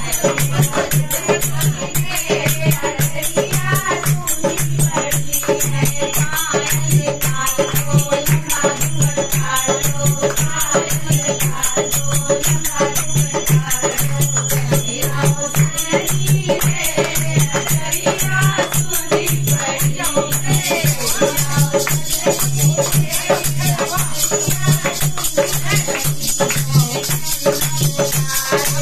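Group of women singing a wedding folk song together, accompanied by a hand drum and rattling percussion keeping a quick, steady beat.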